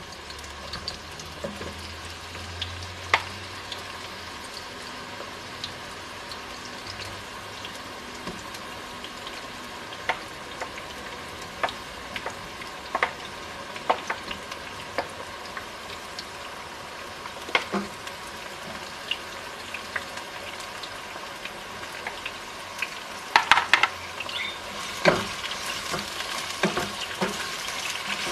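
Chopped vegetables sizzling in a hot pot as they are pushed off a plate with a wooden spatula, with scattered clicks and knocks as pieces drop in. Near the end a wooden spatula stirs them, with louder scraping and clatter over the sizzle.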